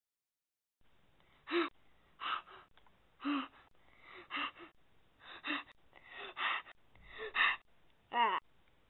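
A person making short, breathy gasps, about one a second, after a brief dead silence at the start.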